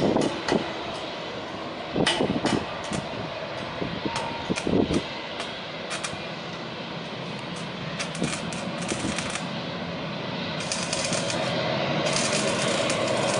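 Jet engine noise of an Airbus A330 climbing out at takeoff power: a steady roar broken by frequent irregular sharp crackles, growing a little fuller near the end.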